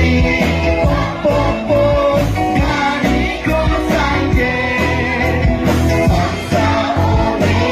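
A song playing: a singing voice with vibrato over a band backing with a steady beat and a prominent bass.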